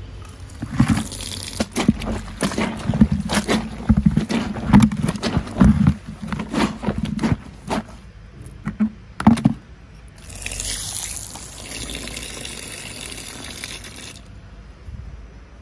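Irregular knocks and clatter of things being handled, then water running steadily for about four seconds before it stops.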